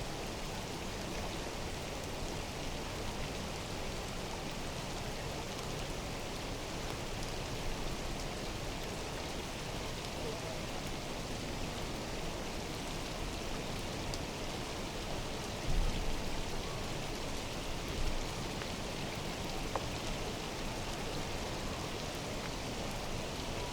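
Rain falling steadily, an even hiss with scattered small drop ticks. A low thump comes about two-thirds of the way through, and a smaller one a couple of seconds later.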